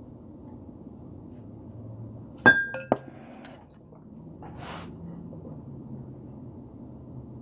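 Two ringing clinks of ceramic and glass kitchenware about half a second apart, as a ceramic mug is set down beside a glass mixing bowl. A short hiss follows a couple of seconds later, over a steady low hum.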